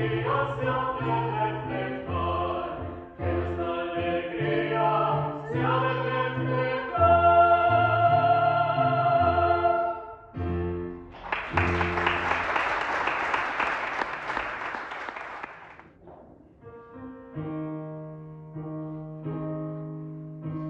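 A vocal quartet singing a Christmas carol in several voices, the last held chord ending about ten seconds in. Audience applause follows for about five seconds, then an acoustic guitar starts playing plucked notes.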